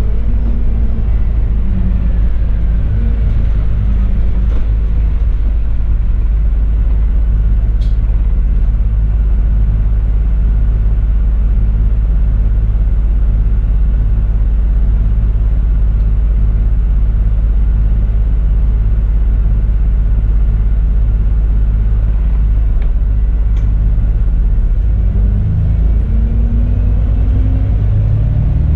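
Alexander Dennis Enviro400 MMC double-decker bus on the move, heard from the upper deck: a loud, steady low engine and road rumble. Near the end the engine note rises as the bus accelerates.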